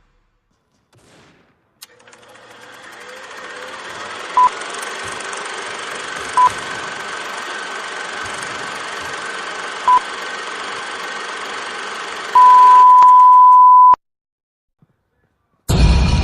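Electronic beeps over a steady hiss: three short single beeps a few seconds apart, then one loud held beep of about a second and a half that cuts off suddenly into silence.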